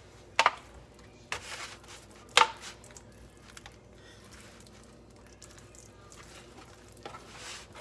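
A hand rubbing yellow mustard into raw pork ribs in a disposable aluminium foil pan: soft wet squishing, with two sharp knocks, about half a second and two and a half seconds in.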